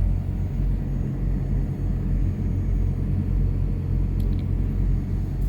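Diesel truck engine idling: a steady low rumble with an even hum. A few faint light clicks come about four seconds in.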